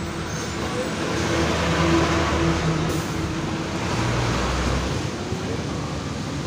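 A large vehicle passing close by, its engine and tyre noise swelling up and easing off again, over the steady road noise of the vehicle being ridden in.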